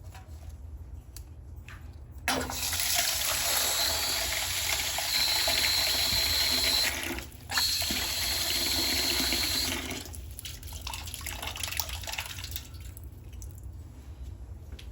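Water running hard from a tap, with a steady high whine over the rush. It starts about two seconds in, cuts off briefly near the middle, then runs again until about ten seconds in.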